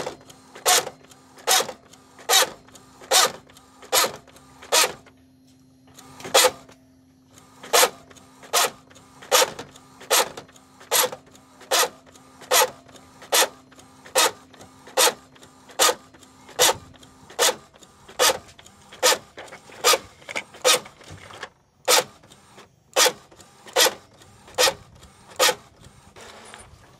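Epson L565 inkjet printer running with a loud, sharp knock repeating about every 0.8 seconds, pausing briefly twice, over a steady hum that stops partway through. This is the grinding noise of a faulty printer that is also making a doubled, jumping printout.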